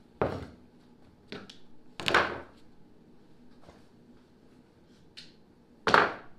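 About five short wooden knocks and scrapes as a hand plane is worked on and then set down on a plywood sheet. The loudest come about two seconds in and near the end.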